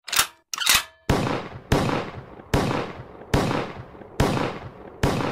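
Two short noisy bursts, then six heavy cinematic impact hits a little under a second apart, each ringing out after the strike: an edited sound-effect sting for the show's title card.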